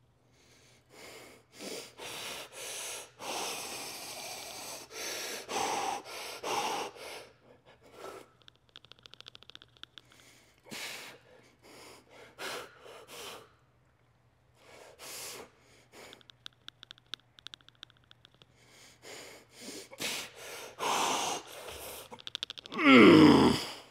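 A man's hard, effortful breathing: a run of short, forceful exhalations through a set of cable rear-delt flyes, ending in a loud groan that falls in pitch.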